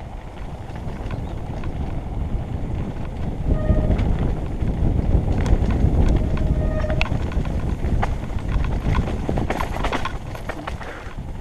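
Mountain bike rolling fast down a rocky gravel trail: tyres crunching over loose stones and the bike rattling over the bumps. It gets louder over the first few seconds as speed builds, with two brief squeaks.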